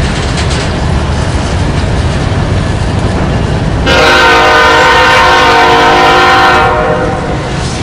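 Diesel freight locomotives rumbling past at close range, wheels clacking on the rails. About four seconds in, a multi-chime locomotive air horn sounds as one steady chord for nearly three seconds, then fades.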